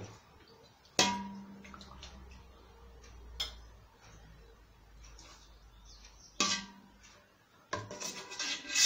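Metal utensil knocking and scraping against a stainless steel cooking pot, each strike ringing briefly. A few separate clanks spread through, then a quick run of clanks and scrapes near the end.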